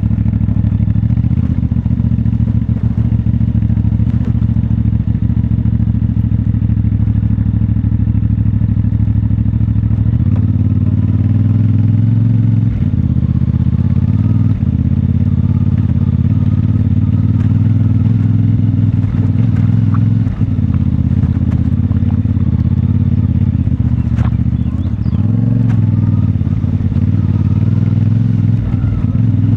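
CFMoto 450MT's parallel-twin engine, stock exhaust, running at steady riding revs, its note dropping about a third of the way in and rising and falling again near the end as the rider works the throttle. Scattered light clatter over it.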